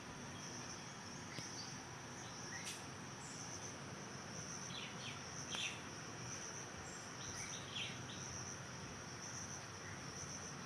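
Insects chirping steadily in a high, even trill, faint, with a few short chirps mixed in.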